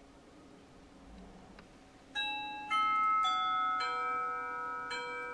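Doorbell chime ringing out a tune of bell-like notes at different pitches, about two a second, starting about two seconds in after near-quiet room tone: someone is at the front door.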